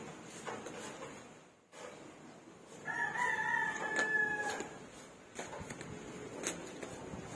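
A rooster crowing once, one call of nearly two seconds about three seconds in, dropping slightly in pitch at the end.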